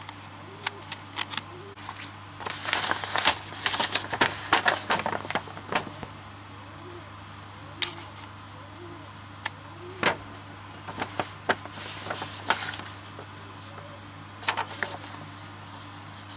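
Packaging being opened and handled by hand: scattered sharp clicks and two stretches of busy crackly rustling, one a few seconds in and another after about ten seconds, over a steady low hum.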